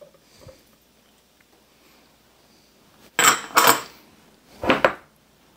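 A spoon clattering against a mixing bowl while diced vegetables are scraped in: two sharp clinks close together about three seconds in, and a third a second later.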